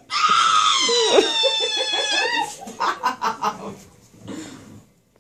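A sedated toddler girl shrieking: one long, high-pitched squeal that slowly falls in pitch for about two seconds, then a run of quick giggling yelps, about five a second, fading near the end.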